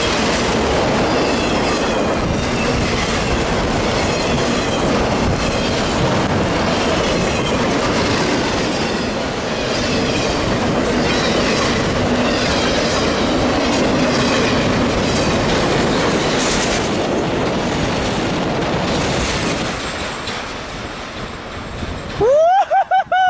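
Freight train passing close at speed, wheels clicking over the rail joints under a loud, steady rush of noise as the train throws snow over the trackside and the microphone. The rush tapers off near the end, and a short rising-and-falling tone sounds in the last second.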